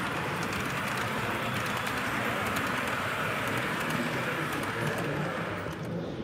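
OO-gauge model CrossCountry Voyager diesel unit running past through a station, a steady rushing noise.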